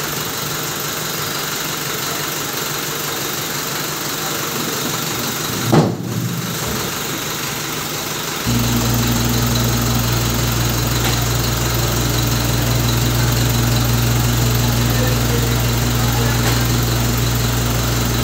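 A truck engine idling steadily. About six seconds in there is a brief loud sound. At about eight and a half seconds a louder, deep steady hum starts up and keeps going.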